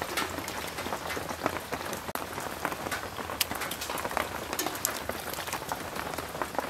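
Heavy rain falling steadily: a dense patter with many small sharp drop clicks.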